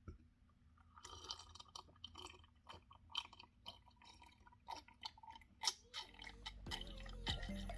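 Close-miked chewing, with wet, clicky mouth sounds, starting about a second in. Background music fades in near the end.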